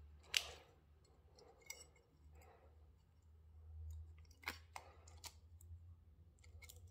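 Mostly near silence with a few faint clicks and taps of a hex key and small metal adapter parts being handled; the sharpest click comes about half a second in.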